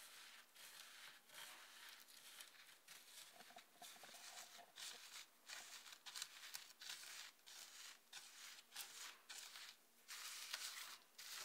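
Faint, irregular scratchy rustles of a hand brushing and pressing through dry ground red root-dye powder in a tray.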